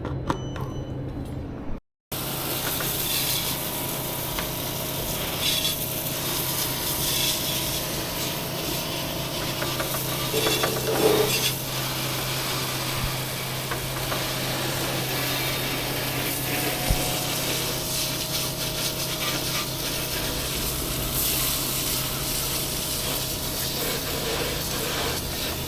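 Continuous rubbing or scrubbing against a surface, over a steady low hum, after a brief cut to silence about two seconds in.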